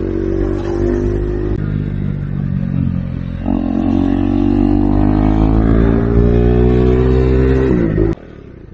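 KTM 390 Duke's single-cylinder engine pulling under throttle, its revs climbing steadily with a sudden jump in pitch about three and a half seconds in. The revs fall away near the end, and the sound drops much quieter just after eight seconds.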